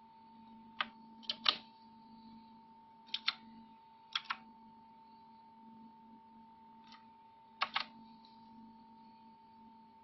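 Mechanical keyboard keys with clicky blue switches pressed a few times at irregular intervals, making sharp clicks, several in quick pairs. A steady faint tone runs underneath.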